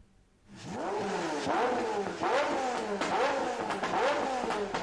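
Pagani Zonda F V12 engine accelerating hard through the gears. Its pitch climbs and drops back at each upshift, about five times, starting about half a second in.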